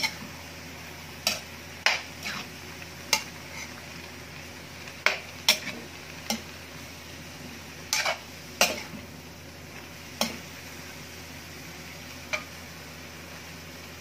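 A metal spatula stirring and turning chopped squash, chayote and ground beef in an aluminium wok. The blade knocks and scrapes against the pan about a dozen times at uneven intervals, thinning out and stopping two seconds or so before the end.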